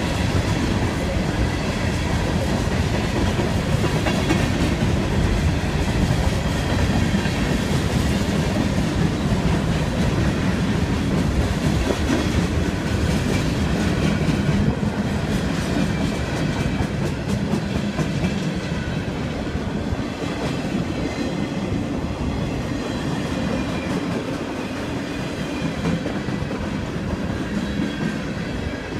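Norfolk Southern freight train's cars rolling past at a grade crossing, wheels giving a steady rumble and clickety-clack over the rail joints; it eases off a little about halfway through as the open gondolas give way to empty flatcars.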